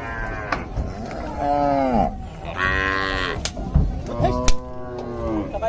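Cattle mooing repeatedly: several long calls that fall in pitch, one of them higher-pitched than the others, some overlapping. Two sharp knocks are heard in the middle.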